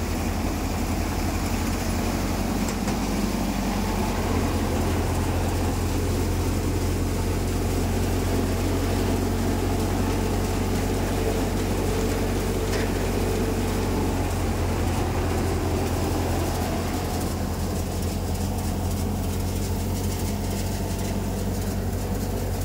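Tractor-driven multicrop paddy thresher running steadily while threshing rice, a continuous low machine hum.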